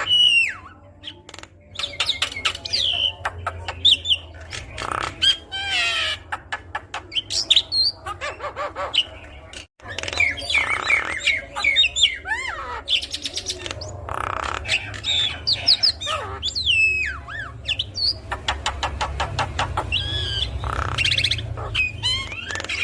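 Javan myna (jalak kebo) singing a varied song of whistles that slide up and down, fast rattling trains of clicks and harsh squawks.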